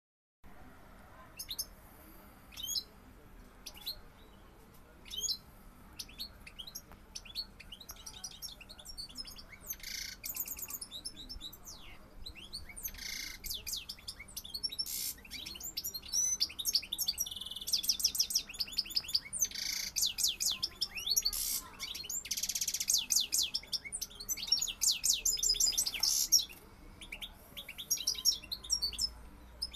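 Male European goldfinch singing to a female, a fast liquid twittering of chirps and trills. It starts as scattered calls and grows into dense, louder song in the second half, then eases off near the end.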